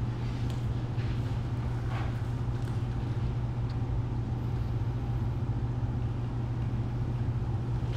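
Steady low hum of room ventilation equipment running, with a few faint rustles of movement.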